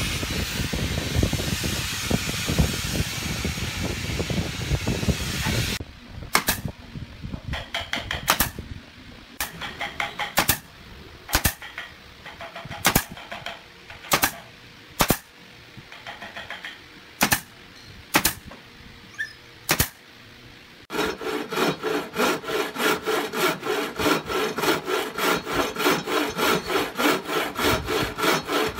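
A steady hiss for about six seconds, then a pneumatic brad nailer firing about fifteen single shots, roughly a second apart, into a curved wooden trim piece. From about 21 seconds a wooden frame saw cuts through the wood in quick, even back-and-forth strokes.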